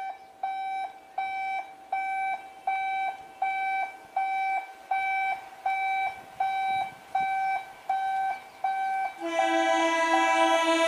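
Level crossing warning alarm beeping in a steady rhythm, about three beeps every two seconds, signalling an approaching train. Near the end the approaching electric multiple unit sounds a steady horn over the beeping.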